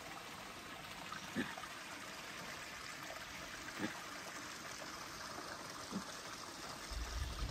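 Steady trickling, rushing sound of running water, with a few soft thuds spaced a couple of seconds apart and a heavier low thump at the very end.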